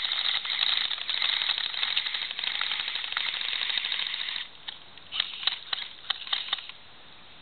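Several airsoft rifles firing in rapid bursts, a dense chatter of clicking shots, which thins to scattered single shots about four and a half seconds in and stops shortly before the end.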